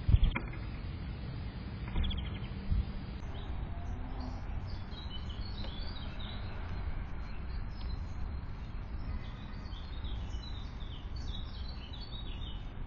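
Small birds chirping with many short, high calls that begin a few seconds in, at a window feeder. A loud knock comes right at the start and two weaker knocks follow about two seconds later, over a steady low background rumble.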